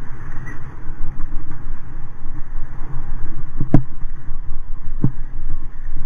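Wind buffeting the camera microphone, with rumble from the ride over a leaf-covered trail. Two sharp knocks, about a second and a half apart in the second half, as the rig jolts over bumps.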